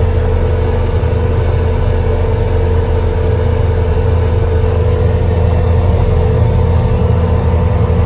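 Skid steer's diesel engine running steadily, heard from inside the cab as a loud low hum with a steady whine over it.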